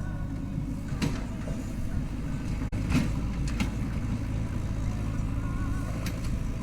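Diesel engine of heavy machinery, a backhoe loader or tractor, running steadily with a low rumble, with a few sharp knocks or clanks.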